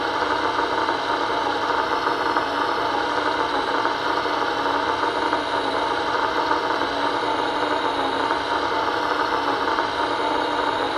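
Servonaut sound module in an RC Komatsu PC700 excavator model playing its simulated diesel engine sound through the model's loudspeaker, running steadily with no change in pitch.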